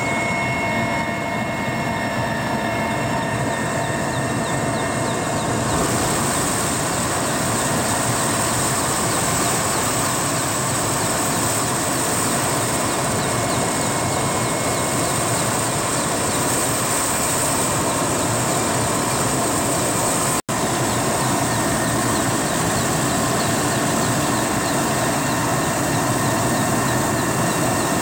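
Mil Mi-8 helicopter's twin turboshaft engines and main rotor running, heard as a loud, steady cabin noise in flight, with a momentary cut-out about two-thirds of the way through.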